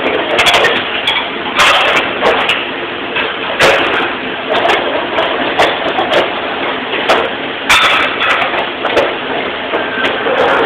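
Dishes, cutlery and plastic bus tubs clattering as a dish cart is emptied and sorted by hand: sharp, irregular knocks and clinks, one or two a second, over a steady background noise.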